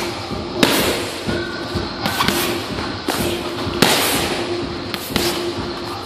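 Punches, kicks and knees landing on leather Thai pads: sharp slapping thuds, about one every half second to a second, during a Muay Thai pad drill.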